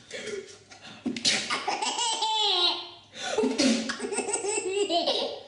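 A baby laughing hard in two long bouts, the first starting suddenly about a second in and the second about three seconds in: laughter set off by someone sneezing.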